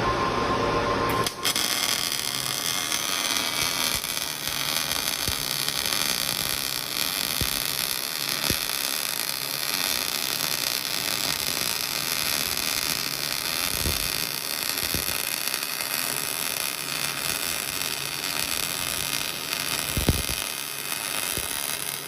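MIG (GMAW) welding arc crackling steadily as a bead is run, starting about a second in, with a few sharp pops along the way.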